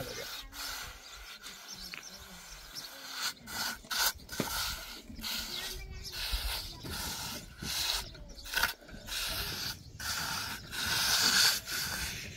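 Irregular rustling and scraping noises in uneven bursts, with brief pauses between them.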